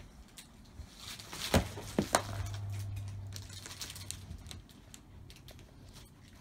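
Clumber spaniels shifting about in the bedding of a whelping box: rustling and faint clicks, with two sharp knocks about a second and a half and two seconds in, then a low steady hum for about two seconds.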